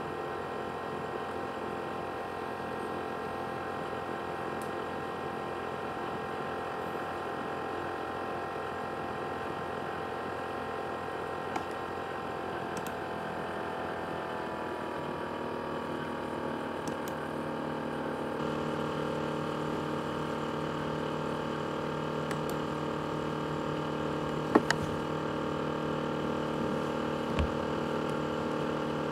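ASUS X543UA laptop's CPU cooling fan running with a steady whine. About halfway through the whine slides down in pitch and settles into a lower, steady hum, and a sharp click stands out near the end.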